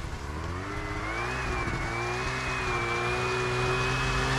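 A vehicle engine revving hard under load as it climbs a steep snowy bank. Its pitch rises over the first couple of seconds and then holds high while it grows louder.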